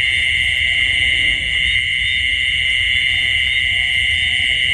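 Steady, unbroken high-pitched buzzing chorus of night insects, with a low rumble underneath.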